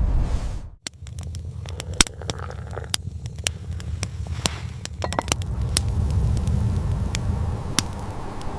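Small fire crackling with irregular sharp pops over a low rumble of wind. A louder rush of wind at the start cuts off abruptly just under a second in.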